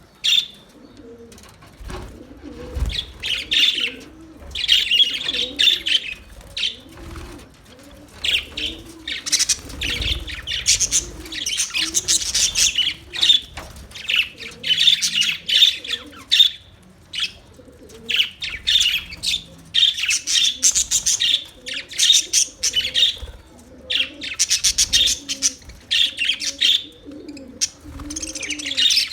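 Small Australian parrots chattering and chirping in a rapid, busy warble that comes in bursts every second or two. Low, soft cooing calls run steadily beneath.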